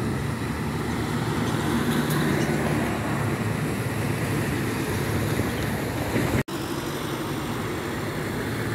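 Road traffic passing on a wet road: a steady run of engine and tyre noise that swells between about one and six seconds as cars go by, then breaks off for an instant about six and a half seconds in.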